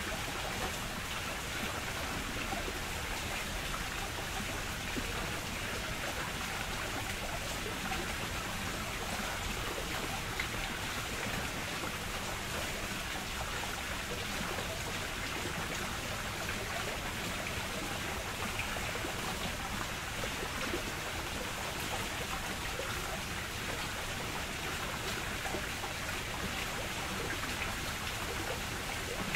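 Steady rush of running water, even and unbroken, with no single splash standing out.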